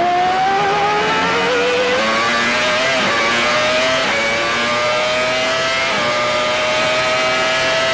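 Onboard sound of the Benetton's Renault 3.0-litre V10 Formula 1 engine under full throttle. It climbs slowly in pitch through each gear, with a brief dip about every two seconds as it shifts up.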